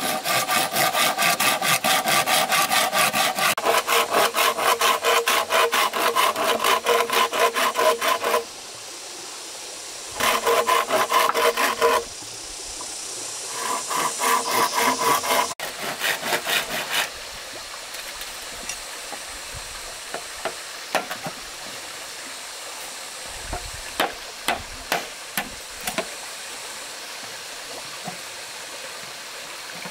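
Hand saw cutting wood in fast, even back-and-forth strokes, in three spells with short pauses between. Then come a few scattered light taps and knocks.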